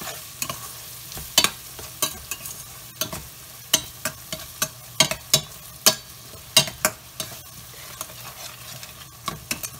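Spice masala with onion and ginger frying in a stainless steel pot while being stirred, cooking down into a paste: a steady sizzle broken by irregular sharp clicks and scrapes of the spatula against the pot, about one or two a second, thinning out for a moment before the end.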